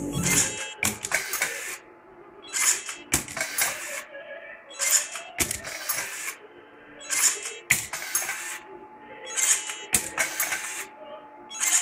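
CRT-571 motorized card dispenser feeding, encoding and ejecting plastic Mifare RFID cards in a stress-test loop. Its motor runs with clicks in a repeating cycle, about once every two and a half seconds, over a faint steady tone.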